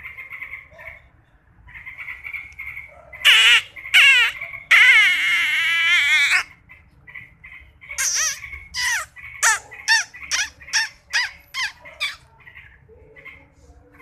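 Birds squawking loudly: a few long, harsh squawks about three seconds in, then a string of short calls about two a second, with softer chirps between.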